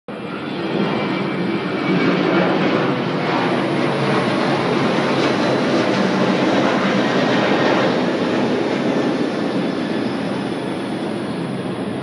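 Aircraft passing overhead: a loud, steady rushing rumble that builds over the first two seconds, holds, and slowly fades over the last few seconds.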